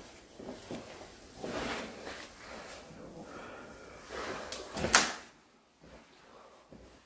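Footsteps scuffing over a debris-strewn concrete floor, with a single sharp knock about five seconds in.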